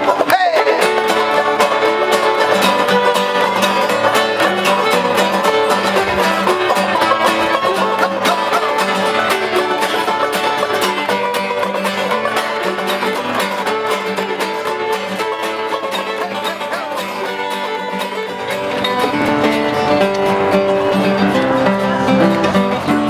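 Acoustic string-band music with fast plucked and strummed strings, played continuously.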